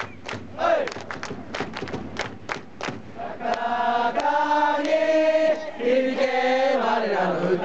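A crowd of baseball fans clapping in a quick, even rhythm, about four claps a second. About three seconds in, they break into a cheering song sung together in unison, with long held notes.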